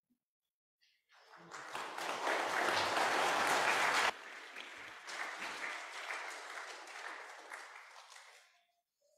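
Congregation applauding: clapping starts about a second in and is loudest for a few seconds, drops suddenly to a lower level about four seconds in, then dies away near the end.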